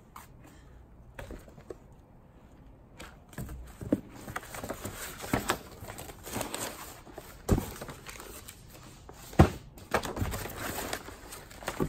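Paper and cardboard rustling as papers, folders and booklets are handled and shuffled inside a cardboard box, starting a few seconds in. Two sharper knocks come later, about two seconds apart.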